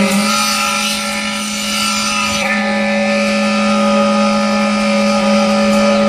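Concrete-pumping machinery running steadily while concrete is placed: a constant mechanical drone with a strong hum. A hiss rides over it for the first two seconds or so.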